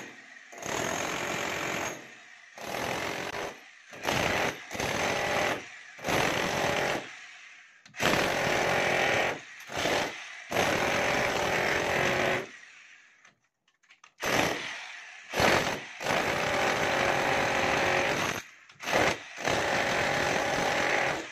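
Budget 5 kg electric demolition breaker hammer chiselling a hole into a brick wall. It hammers in repeated runs of one to two seconds, stopping and starting, with a longer pause about two-thirds of the way in.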